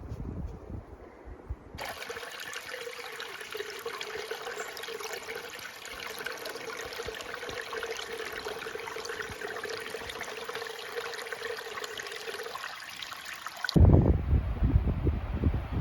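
Running water of a small stream, an even rushing splash that starts abruptly about two seconds in and cuts off near the end, where wind buffets the microphone.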